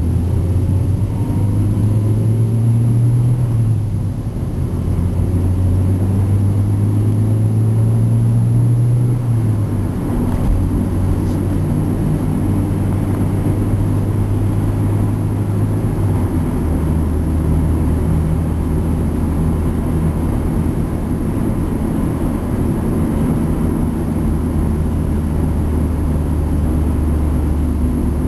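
Car engine running under way with road rumble, a steady low drone whose pitch rises a little and then drops three times.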